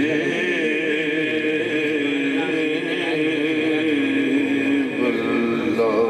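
A man reciting a naat, holding one long drawn-out sung note that wavers slightly, then moving to a new held note about five seconds in.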